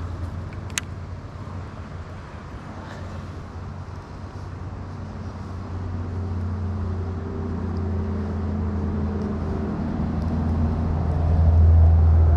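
A motor vehicle's low engine drone that grows steadily louder through the second half and is loudest near the end, like a vehicle approaching. A single sharp click comes just under a second in.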